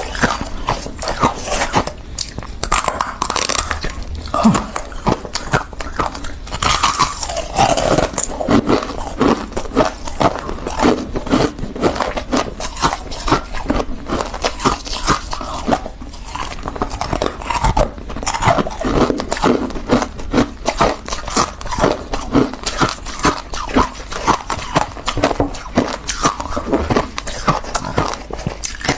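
Refrozen freezer frost crunching in a dense, continuous run of crisp crackles as it is squeezed and broken up by fingers in a glass dish and bitten and chewed.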